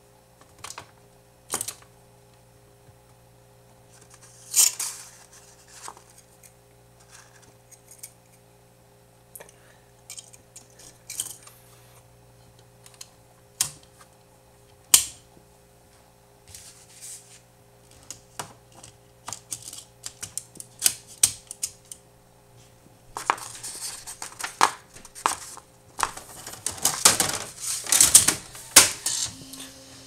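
Scattered sharp clicks and knocks from the mechanism of a Smith Corona XL 1900 electronic typewriter. Near the end they build into a dense run of clattering that lasts several seconds.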